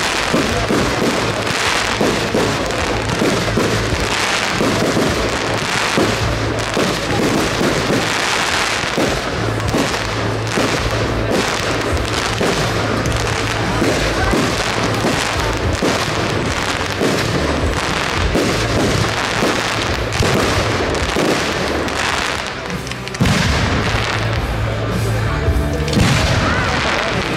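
Aerial fireworks going off without pause: a dense run of bangs and crackling from bursting shells. Near the end, after a brief lull, a sudden louder burst.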